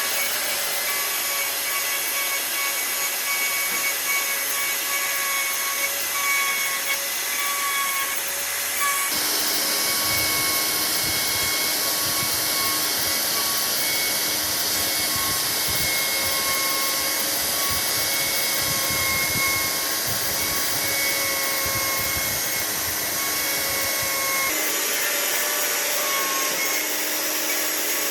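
An electric power tool running steadily with a high whine while working wood. The sound shifts abruptly about nine seconds in and again near the end.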